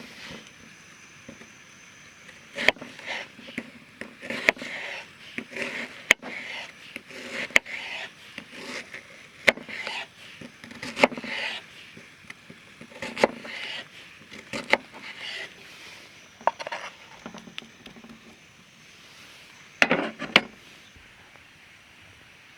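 Camp cookware being handled: irregular scraping with sharp metallic clinks and knocks, some in quick pairs.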